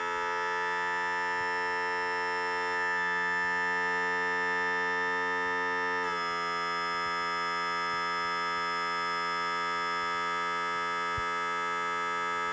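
Power trim and tilt pump motor of a 1978 Johnson 115 HP outboard running, lowering the tilt ram: a steady electric hum, dropping slightly in pitch about six seconds in.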